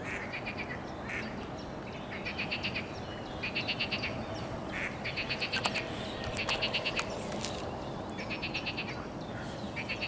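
Rattling animal calls: short, rapid series of high clicks, each about half a second long, repeated every one to two seconds.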